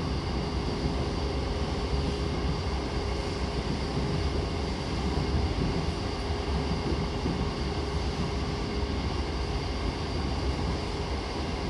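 Running sound of a JR East E233-7000 series electric train (Mitsubishi IGBT inverter), heard inside the passenger car: a steady low rumble of wheels on rail with a constant hum, running at a steady speed.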